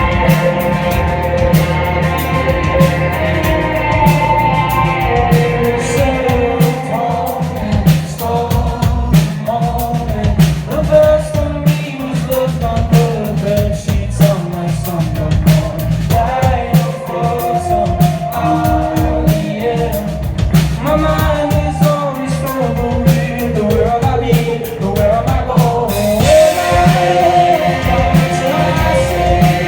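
Live rock band playing: a male lead vocal sings over electric guitar and a drum kit with a steady beat. A bright hiss, like cymbals, joins about four seconds before the end.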